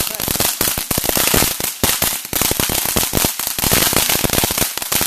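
Consumer firework crackling: a dense, fast run of sharp pops, many each second, keeping up throughout.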